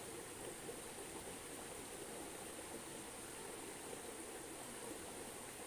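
Steady rush of a shallow river running over rocks and small rapids.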